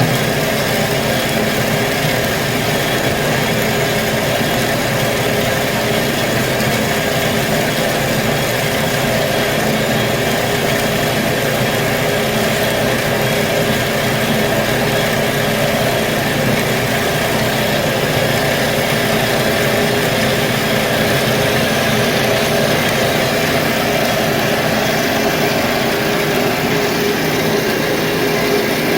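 A machine running steadily: a constant mechanical hum and noise that holds unchanged throughout.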